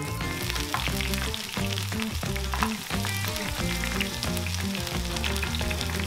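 Beer-battered food deep-frying in a pan of hot oil: a steady, dense sizzle with constant small crackles. Background music with a steady bass line plays underneath.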